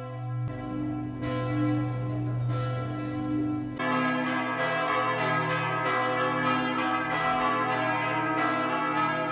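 Church bells ringing: several bells sounding together in a sustained, overlapping peal. About four seconds in the sound changes abruptly to a fuller, louder peal.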